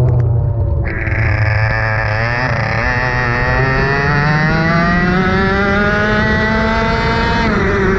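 Racing kart engine pulling hard, its pitch climbing steadily for several seconds as the kart accelerates, then dropping sharply near the end as the throttle comes off.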